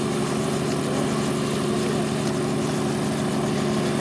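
Light helicopter running on the ground during start-up: a steady engine hum with a fast low pulsing from the turning rotor.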